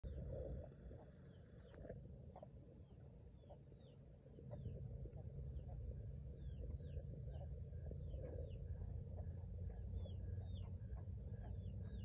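Frogs calling: many short chirps that fall in pitch, a couple a second, with a row of lower, evenly spaced notes in the second half. A steady high whine runs underneath, and a low rumble grows louder about four and a half seconds in.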